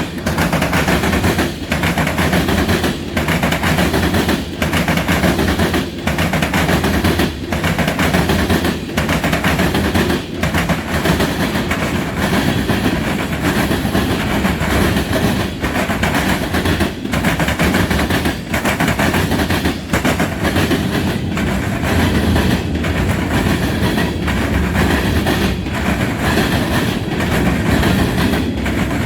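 Freight train rolling past on the rails, with a steady loud rumble of wheels and cars. The sound dips briefly and regularly about every second and a half as the cars go by.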